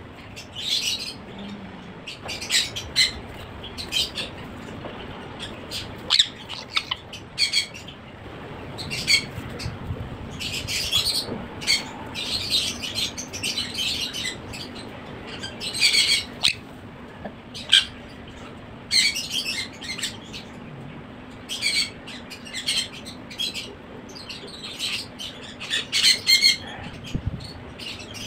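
Sun conure chick giving short, harsh squawking calls over and over in irregular clusters, with wing flapping partway through.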